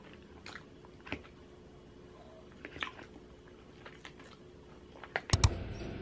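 Quiet eating: chewing and a few light clicks of a metal spoon against a plastic food container. Near the end come two sharp clicks, then a steady hum starts.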